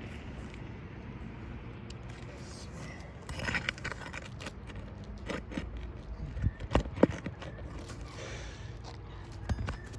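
Scattered scrapes and sharp clicks from handling tools and asphalt shingles during roof repair work, loudest about seven seconds in, over a steady low rumble.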